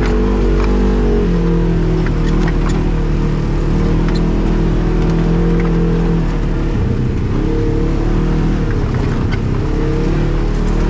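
Off-road vehicle's engine running on a trail under changing throttle. Its pitch drops a little over a second in and dips and rises again from about six to nine seconds. Occasional short clicks sound over it.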